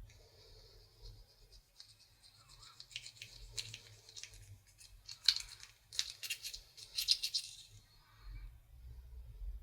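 Slime being squished and mixed by hand, making a run of crackling clicks and wet squelches. The clicks are densest between about three and eight seconds in.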